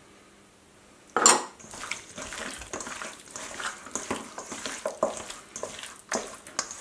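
Hands mixing spice-coated raw chicken wings in a stainless steel bowl: irregular wet slaps and scrapes against the metal, beginning with a louder knock about a second in.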